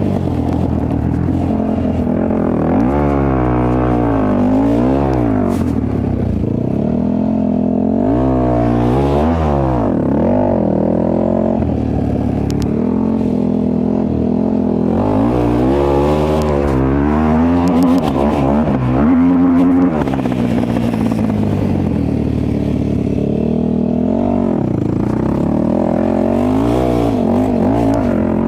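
A 450 cc single-cylinder four-stroke off-road engine revving up and down over and over in bursts, its pitch rising and falling several times with steadier running in between, as the rider does burnouts on slick ground.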